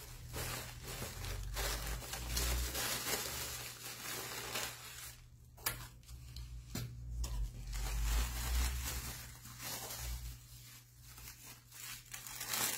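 Plastic packaging crinkling and rustling as it is handled and pulled off, in uneven bursts, with a couple of sharp ticks midway.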